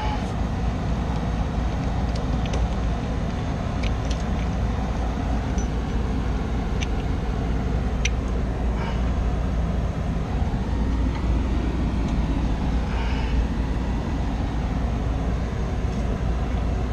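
Steady low machinery rumble, with a few light metallic clicks of hand-tool work on the blower shaft and bearings.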